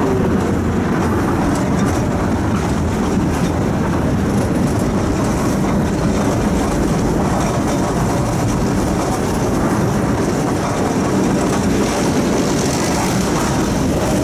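Tram running along its rails, heard from inside the car: a steady rumble of wheels on track.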